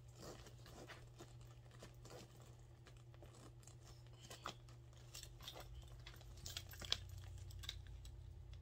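Faint handling sounds of a small handbag's strap hardware: small metal clicks and light rustling as a crossbody strap's clips are fastened to the bag, with one sharper click about seven seconds in.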